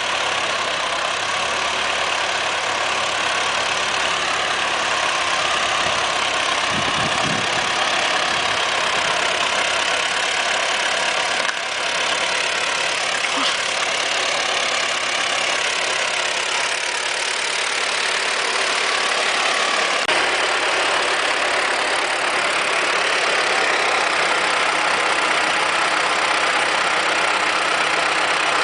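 Tractor engine running steadily, driving a rotary tiller that churns through the soil.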